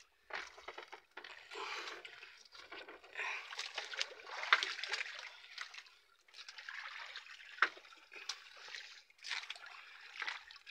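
A wet fishing net being hauled hand over hand into a boat, water trickling and splashing off the mesh in irregular bursts, with a few small knocks.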